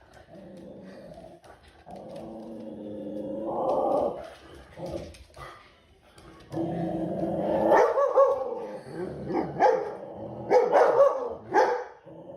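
A dog vocalizing, with long drawn-out sounds that swell over the first few seconds. After a short lull it goes on with more drawn-out sounds broken by several short barks.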